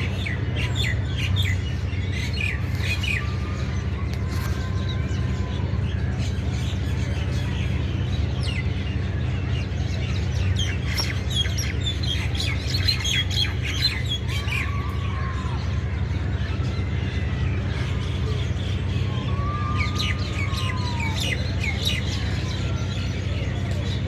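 Birds chirping in quick clusters of short, high notes, with a few longer falling whistled calls now and then, over a steady low hum.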